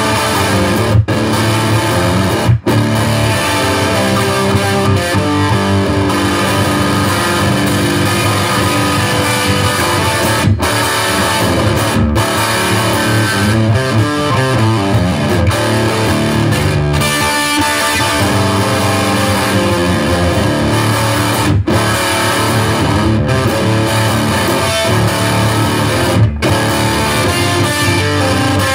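Gibson Les Paul Studio electric guitar, tuned down a whole step, playing a blues riff, with a few momentary breaks between phrases.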